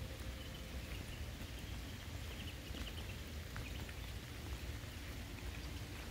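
Steady light rain falling, with a constant low rumble underneath. A few faint, high chirps come through in the first half.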